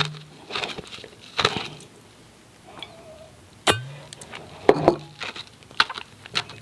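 Hard freezer ice being bitten and chewed close to the microphone: irregular sharp cracks and crunches, the loudest about three and a half seconds in, with a quieter gap just before it.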